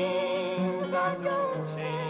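Folk song: a woman singing held, wavering notes over a steady instrumental accompaniment.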